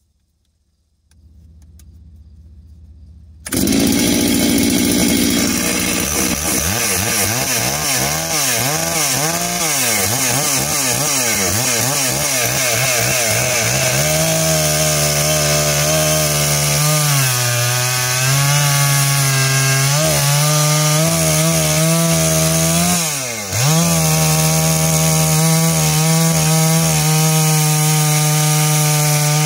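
Holzfforma G660 two-stroke chainsaw with a 36-inch bar. The engine comes in loud about three seconds in and is revved up and down for several seconds. It then runs at steady high revs as the chain cuts down through a big log, and its pitch dips sharply and recovers once, about two-thirds of the way through.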